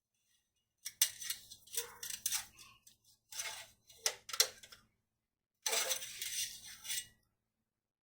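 Light metal clicking and scraping from handling the engine oil dipstick while checking the oil level, in three short bouts about a second apart.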